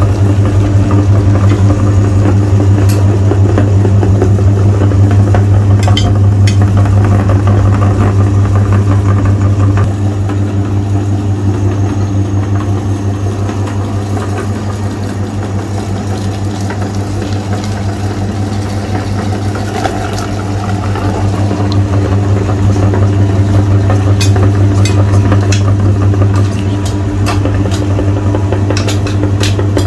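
Electric meat grinder's motor running with a steady hum as it grinds chocolate-coated ice cream bars, a little quieter through the middle stretch. A few light clicks near the end.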